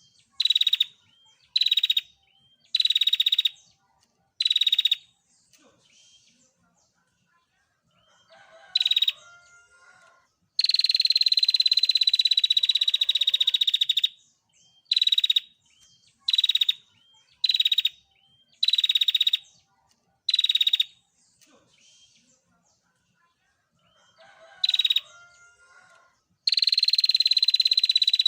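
Female prinia (prenjak) calling: a series of short, high, buzzy calls about one a second, broken by long rapid rattling trills of three to four seconds, one about ten seconds in and another starting near the end.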